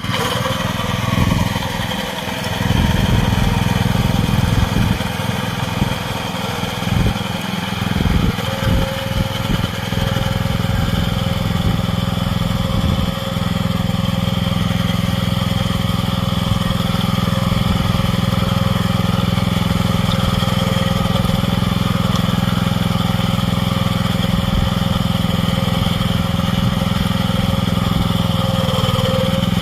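Small engine of a farm field machine running, uneven for about the first thirteen seconds and then running steadily.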